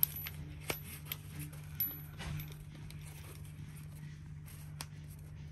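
A few sharp clicks and taps of a screwdriver working a screw and metal washer, the loudest right at the start, over a steady low hum.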